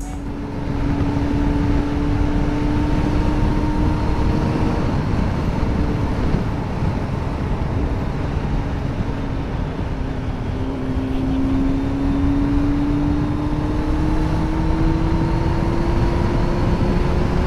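A vehicle engine running on the road under a heavy rumble of wind and road noise. Its steady note fades about a third of the way in, then climbs in pitch over several seconds as it speeds up.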